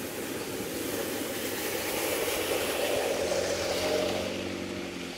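An engine running over a steady rushing noise, its hum becoming clearer about halfway through.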